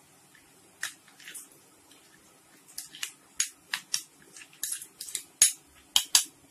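Cooking spoon scraping and clinking against a pan while stirring fried onions with garlic paste and chilli powder: irregular sharp clicks, sparse at first and coming thicker from about halfway through.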